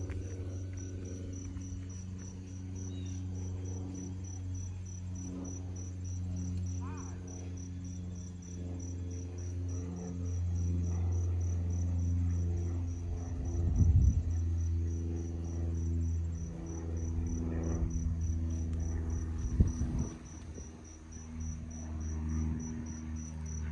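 Steady low engine drone, taken for an aircraft passing overhead out of sight. Insects chirp in an even, rapid pulse above it. Two brief bumps stand out, one about halfway through and one later.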